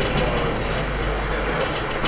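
Scania UNVI Urbis 2.5 DD CNG double-decker bus heard from its upper deck while driving: a steady low rumble of engine and road noise through the body.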